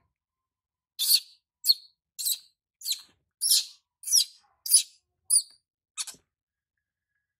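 Baby macaque crying in distress while being bathed: nine short, shrill, high-pitched cries, about two a second, stopping about six seconds in.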